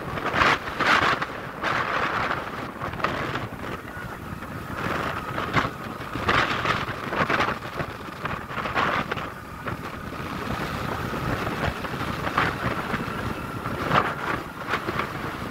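Wind buffeting the microphone of a moving two-wheeler, a gusty rumble with irregular surges, over the vehicle's running noise; a faint steady whine joins from about ten seconds in.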